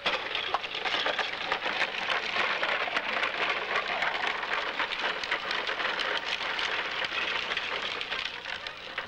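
Hard plastic wheels of a child's low-slung ride-on tricycle rolling over concrete, a steady crackling clatter.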